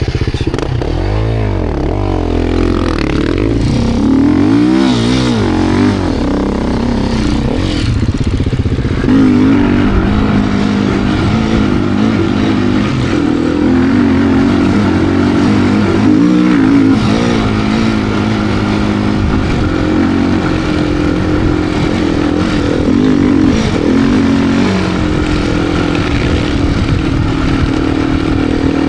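2025 Beta RR390 X-Pro's single-cylinder four-stroke engine under a rider's throttle, revving up and dropping back several times, then held at steadier higher revs from about nine seconds in, with small constant throttle changes.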